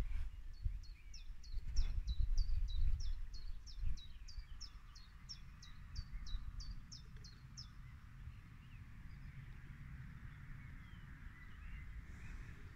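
A small songbird singing a steady run of about twenty quick, high, down-slurred notes, roughly three a second, for about seven seconds, then falling silent. Under it is a low rumbling noise, loudest in the first few seconds.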